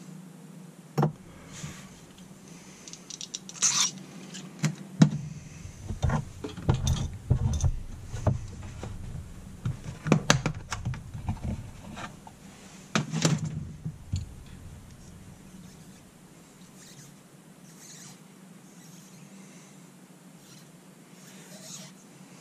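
Small metal clicks, clinks and knocks as a 2002 Yamaha Grizzly ATV carburetor and hand tools are handled and set down on a workbench. The knocks come thick through the first two-thirds, then thin out to faint rustling and the odd tick.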